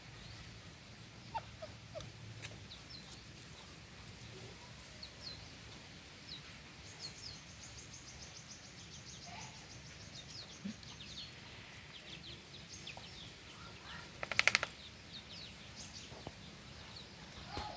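Small birds chirping, short high chirps again and again, with a fast ticking trill in the middle stretch. One brief, loud animal call about fourteen and a half seconds in.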